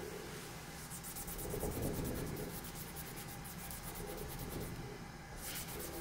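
A cloth rubbed back and forth in quick, even strokes on a wooden surface, scrubbing at a mark scribbled in mechanical pencil lead.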